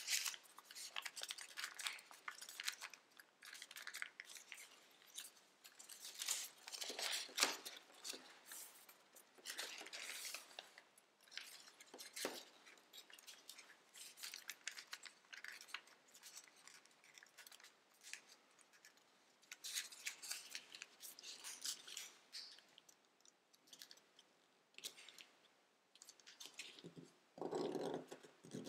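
Tissue-foil origami paper rustling and crinkling in uneven bursts as it is folded and creased by hand. Near the end, a brief low pitched sound.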